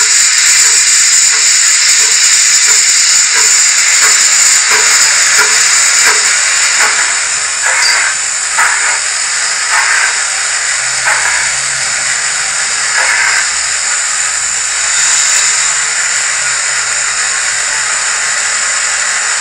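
Zimo sound decoder's steam locomotive sound played through a small ice cube speaker in a model loco. Steady steam hiss with regular chuffs at about one and a half a second, which turn into a few slower, heavier chuffs midway and then give way to hiss alone.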